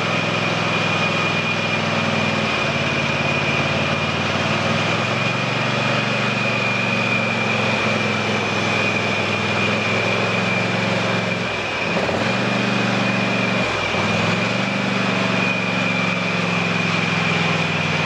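Husqvarna TS348D lawn tractor engine running steadily under way, with a steady high whine alongside it. The engine note dips briefly twice near the end.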